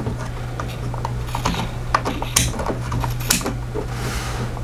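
Rotary selector dial of a DT-830D digital multimeter being turned, its detents clicking in a string of irregular sharp clicks.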